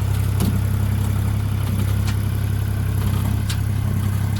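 International 4140 skid steer loader's diesel engine running steadily with a low hum, with three sharp clicks over the top.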